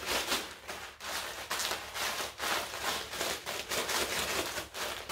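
Zip-top plastic bag crinkling and rustling as the panko breadcrumb and Parmesan mixture inside is worked and shaken by hand to break up lumps, in repeated pulses about twice a second.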